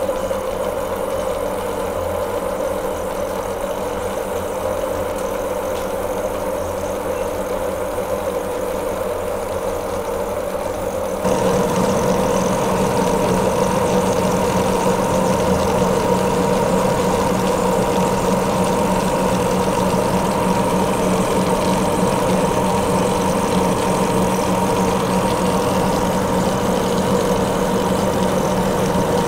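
Monarch engine lathe taking a heavy roughing cut in a steel bar (taken for 1018 cold-rolled) with a carbide LNMX insert under flood coolant. It runs as a steady machine hum with constant tones over a cutting hiss, and grows louder and fuller about a third of the way through.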